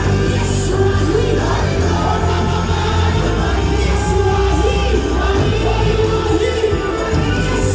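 Worship music: singing over sustained chords and a steady bass.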